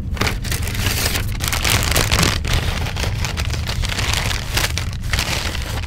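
Paper bags rustling and crackling as they are handled and opened: a white paper carrier bag, then a brown greaseproof-lined paper food bag. A steady low hum runs underneath.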